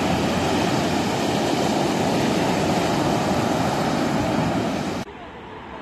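Ocean surf breaking and washing up on a sandy beach: a steady, loud rushing noise that cuts off suddenly about five seconds in, leaving a much quieter background.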